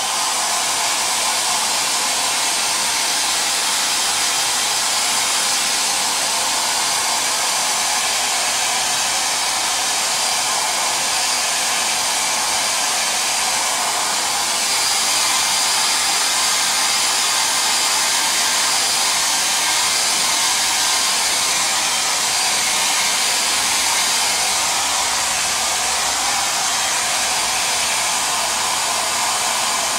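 Handheld Conair 1875 hair dryer blowing steadily on a leather seat, drying a coat of water-based leather dye.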